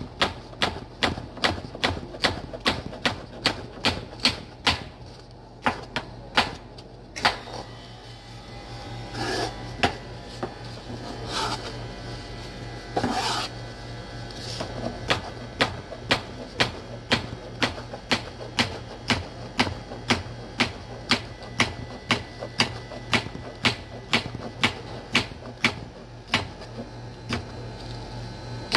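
Chef's knife slicing a cucumber into rounds on a plastic cutting board, the blade knocking the board about twice a second. The cutting breaks off for several seconds in the middle, then picks up the same rhythm again. A steady low hum runs underneath.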